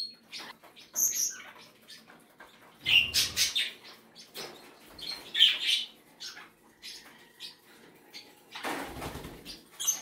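Pet cockatiels and budgies: wings flapping in two short bursts, about three seconds in and again near the end, among scattered short high chirps.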